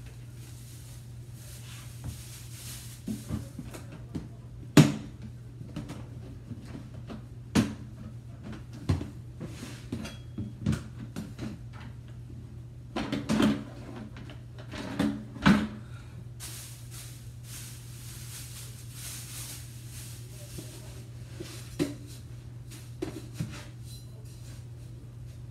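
Cleaning a hooded plastic cat litter box: the plastic hood knocks and clatters as it is handled and lifted off, and a metal scoop scrapes and rustles through the litter. The knocks are scattered, and a stretch of rustling comes in the second half, over a steady low hum.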